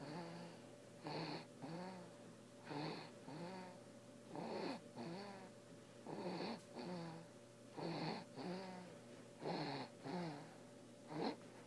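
A five-week-old baby snoring in his sleep. There are about seven snores at an even pace, one every second and a half or so, and each is a longer sound followed by a shorter one.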